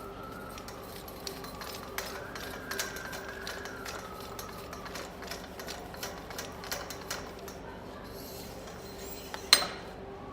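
Steel drilling-tool parts of a core barrel assembly clinking and knocking as they are handled, with one sharp click near the end.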